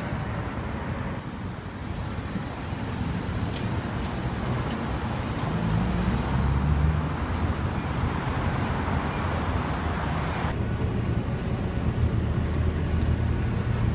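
City street traffic noise: cars passing steadily, with a vehicle's engine running louder around the middle.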